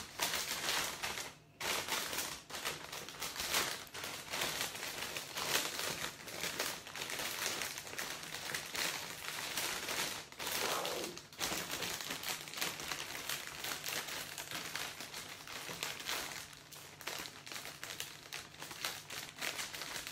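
Clear cellophane wrap crinkling and rustling as it is gathered and scrunched by hand around the top of a gift basket, with a brief pause about a second and a half in.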